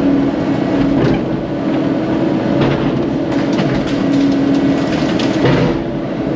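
CAT 308 mini excavator's diesel engine running steadily under load, with sharp cracking and snapping of wood and branches at several points as a tree is pushed over.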